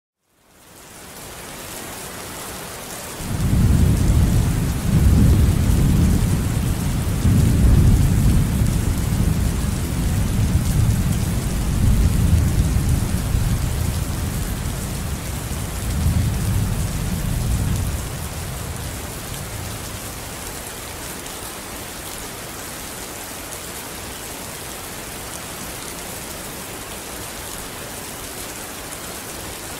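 Steady hiss of heavy rain, with a long, surging low rumble of thunder from about three seconds in that dies away after about eighteen seconds.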